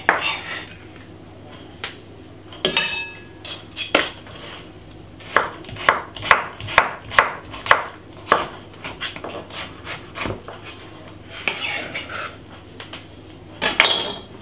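Kitchen knife chopping white onion on a wooden cutting board: sharp knocks of the blade hitting the board, with a quick even run of about three chops a second in the middle and scattered strokes and scrapes around it.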